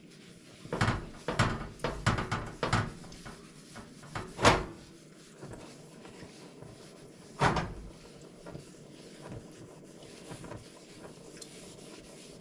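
Cast-iron stovetop griddle clunking on the gas stove's grate as it is rubbed down with an oiled paper towel. There are several knocks in the first three seconds, the loudest about four and a half seconds in, and one more about seven and a half seconds in.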